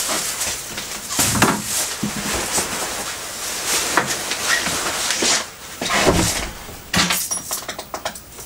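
Rustling of a plastic shopping bag and a jacket being handled and taken off, with footsteps and several sharp knocks.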